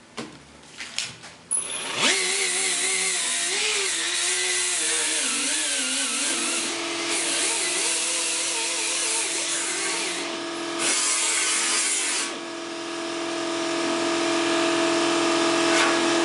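A few handling clicks, then a motor-driven machine starts about a second and a half in. Its pitch wavers for a few seconds, then it settles into a steady hum that grows louder near the end.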